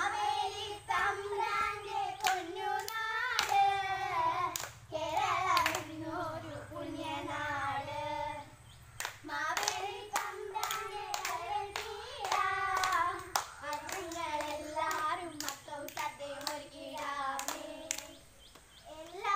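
A girl's or girls' sung song with sharp hand claps keeping time, as in a Thiruvathirakali clapping dance. The singing pauses briefly about halfway through and again near the end, while the claps carry on.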